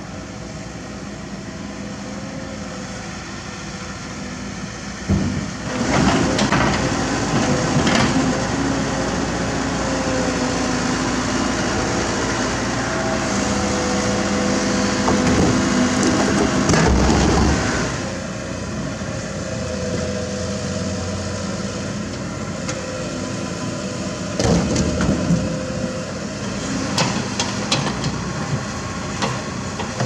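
Kobelco SK75 mini excavator's diesel engine working under hydraulic load, with rock and dirt clattering into a dump truck's bed in several bursts. The engine runs louder from about five seconds in until shortly before the middle, then settles. Another cluster of clatters comes near the end.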